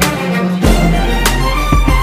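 Background music with a heavy bass line, sustained melodic tones and sharp percussion hits.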